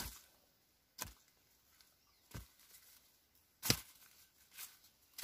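A hand digging tool chopping into soil, five separate strikes about a second apart, the fourth the loudest, while ube tubers are dug up.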